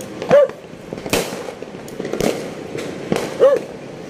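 Distant aerial fireworks bursting: several sharp bangs about a second apart. Two short, high yelps, the loudest sounds, come near the start and near the end.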